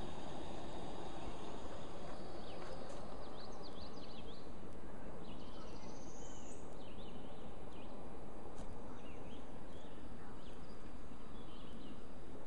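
Birds chirping in scattered short calls over a steady rushing outdoor background noise.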